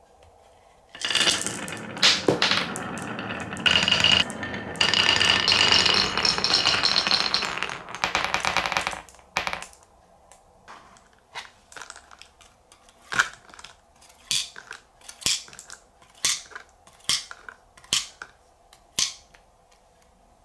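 Several glass marbles rolling fast down a wooden Cuboro marble run, a continuous rumble full of clicks for about eight seconds. Then a string of separate sharp clacks, roughly one or two a second, as marbles hit the wood and knock against each other at the bottom.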